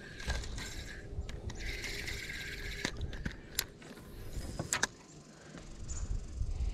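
Spinning reel being cranked, its gears whirring in two stretches of winding during the retrieve, then a few sharp clicks about three to five seconds in as the rod is drawn back to cast.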